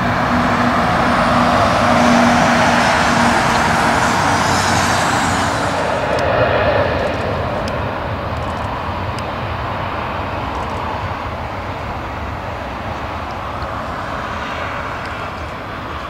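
Jet airliner's engines at takeoff thrust, loudest about two seconds in and then slowly fading as the aircraft moves away.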